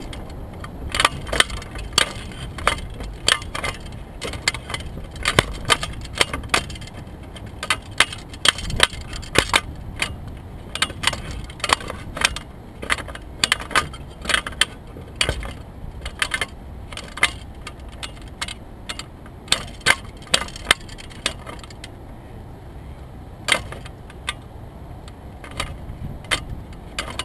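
Irregular sharp clicks and rattles, several a second at first and sparser near the end, over a steady low rumble.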